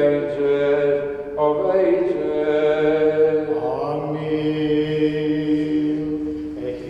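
Greek Orthodox funeral chant sung by a male voice in long, held notes that step from one pitch to the next every second or two.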